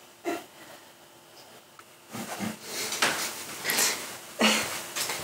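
Stifled laughter: a run of breathy puffs of breath beginning about two seconds in, after a single short puff near the start.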